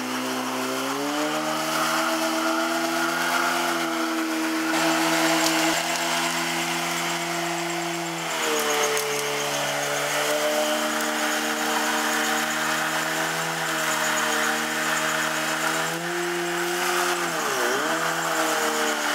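Honda CBR1000RR's inline-four engine held at high revs in a burnout, spinning the rear tyre in place. The revs climb in the first second or so, hold high with small rises and falls, then dip sharply and recover near the end.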